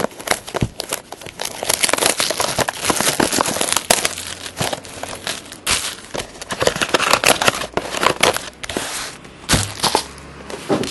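Plastic shrink-wrap crinkling and tearing as it is peeled off a trading-card box, a dense, continuous crackle. Near the end it gives way to a few separate sharp clicks and taps as the box is opened and its packs are handled.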